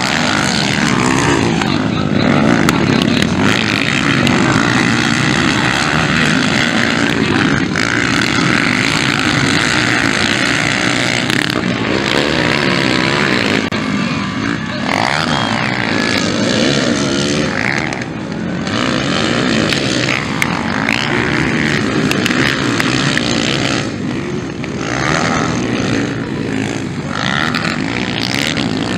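Motocross dirt bikes racing on a dirt track, their engines revving up and down in pitch as they accelerate and pass.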